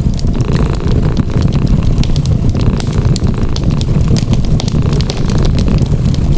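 A cat purring steadily in a low rumble, mixed with the crackle and pop of a wood fire: scattered sharp snaps over the purr.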